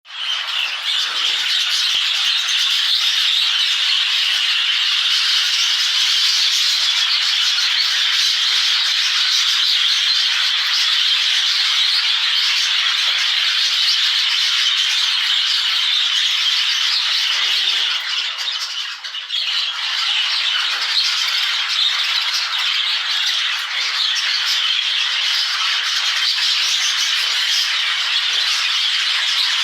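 A large flock of budgerigars chattering and squawking together in a dense, continuous din, with a brief lull about 18 seconds in.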